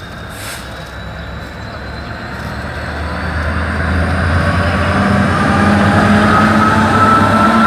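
Class 66 diesel-electric locomotive's engine drone growing steadily louder as it approaches and passes close by, with a higher whine that builds and rises slightly in the second half.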